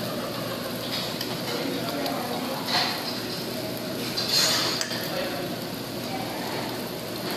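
Forks and spoons clinking and scraping against ceramic plates and bowls during a meal, over a steady background hum, with two sharper clinks about three and four and a half seconds in.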